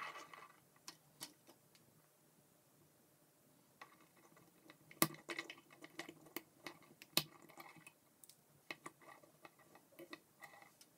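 K'NEX plastic rods and connectors clicking and snapping together while being handled, with light rustling of the plastic pieces. Scattered sharp clicks, sparse at first and busier from about four seconds in, the two loudest snaps about five and seven seconds in.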